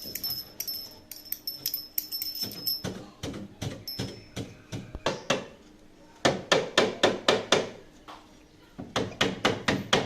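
A hand tool working wood in quick, even strokes, about four a second, in two runs in the second half, with scattered single strokes before.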